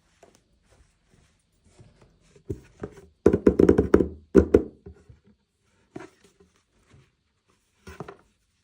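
Hands handling small plastic toy pieces and packaging, making scattered light clicks and taps. A dense run of rapid knocks comes about three seconds in, followed by single taps twice near the end.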